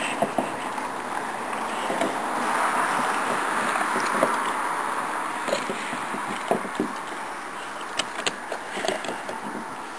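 Boxer dog gnawing a wooden stick on a wooden deck: scattered cracks and knocks of teeth on wood and the stick bumping the boards. A broad hiss swells and fades through the middle.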